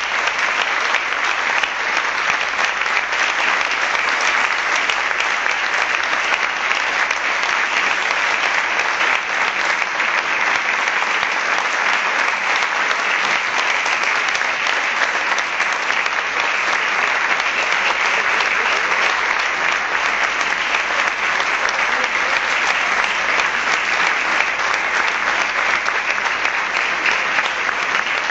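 Audience applauding: dense, steady clapping that keeps up without a break.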